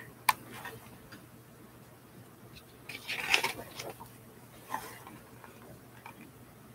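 Pages of a picture book being handled and turned: a sharp click early, then a louder rustle of paper about three seconds in and a smaller one near five seconds.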